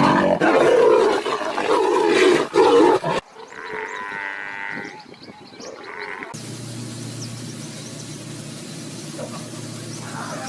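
Leopard and African wild dogs fighting: about three seconds of loud, harsh snarling and growling, then after a sudden cut a high-pitched whining call. After a second cut, a quieter steady low hum with faint chirps.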